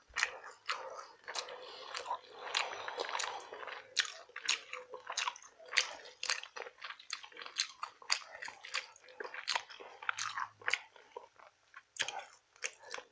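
Close-up mouth sounds of a person chewing rotisserie chicken: irregular wet smacks and clicks from open-mouthed chewing, a few of them sharper.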